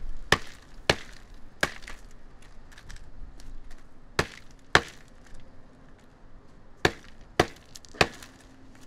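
A hammer striking chunks of broken stone and tile on a cardboard sheet, eight sharp blows in three bursts: three in quick succession at the start, two about four seconds in, and three more near the end.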